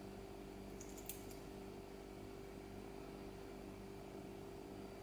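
Steady low hum of room tone, with a few faint light clicks about a second in.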